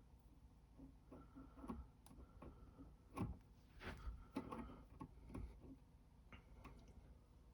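Faint, irregular small clicks and taps from working a soldering iron, solder and wire by hand, heard against near silence; the iron is struggling to melt the solder.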